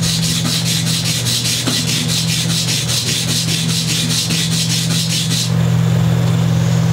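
A guitar nut being rubbed back and forth on sandpaper to shave down its side, at about four quick, even strokes a second; the sanding stops about five and a half seconds in. A steady low hum runs underneath throughout.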